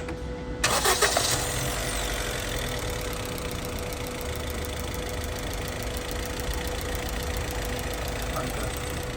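Honda City 1.2-litre engine starts about half a second in, then runs steadily. Its number-4 cylinder is misfiring because the ignition coil has failed, the fault behind its knocking and poor pick-up.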